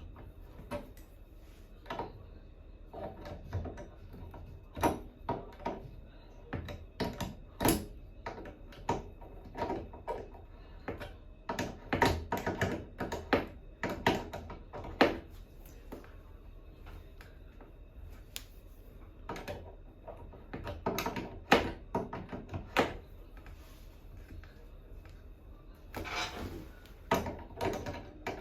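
Irregular clicks, taps and knocks of hand tools and metal fittings being handled during bathroom faucet replacement work, with a short rush of noise near the end.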